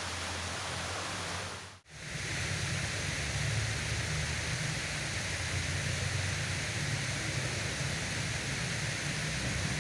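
Steady rush of flowing river water, with a brief dropout just under two seconds in where the recording cuts.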